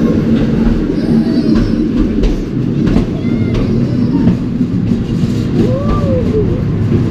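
Scenic Railway carriage running down its steeply inclined track: a continuous low rumble of the car on the rails with scattered clicks.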